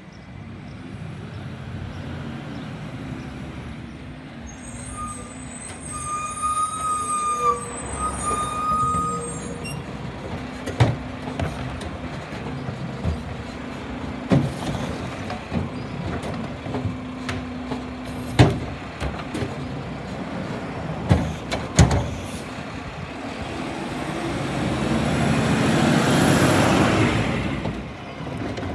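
Mack LR garbage truck's engine as it pulls up, with a high brake squeal as it comes to a stop. Then its Heil Curotto-Can automated arm grabs and dumps carts: a string of sharp clanks as the cart hits the hopper, and the engine revving up near the end to drive the hydraulics.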